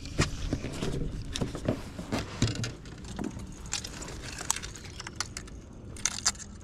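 Irregular light clicks, taps and rattles of fishing gear being handled aboard a plastic kayak, busiest in the first three seconds and again near the end.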